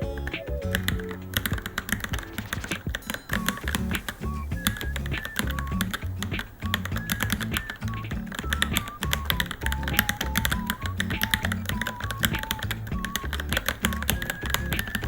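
Rapid, continuous typing on a Varmilo Minilo mechanical keyboard, many keystrokes a second, over background music with a steady bass line and melody.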